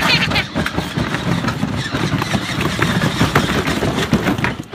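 Battery-powered Barbie Cadillac Power Wheels ride-on toy car driving, its electric drive motors running and its plastic wheels rattling and crunching over rough pavement and grass in a continuous rattling rumble.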